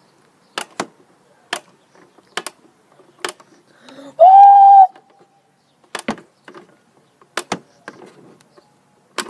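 Plastic crank of a Pie Face game clicking sharply with each turn, about once a second, with a pause partway through. About four seconds in, a short steady 'ooh' cry from the player is the loudest sound.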